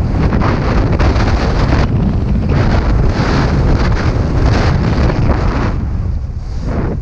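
Wind buffeting the microphone of a downhill skier's camera, with the hiss of skis sliding over packed snow swelling and fading with the turns and easing near the end.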